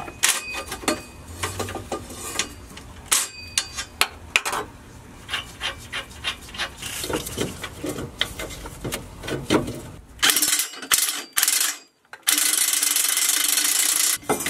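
Metal clinks and rattles of tools and exhaust parts being handled, then a cordless impact wrench runs near the end: two short bursts and then a steady run of about two seconds, spinning a downpipe bolt off the exhaust.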